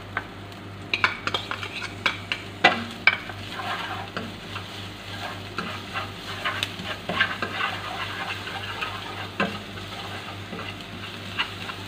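Minced ginger and garlic sizzling in hot oil in a nonstick frying pan, stirred with a spatula that scrapes and clicks against the pan several times.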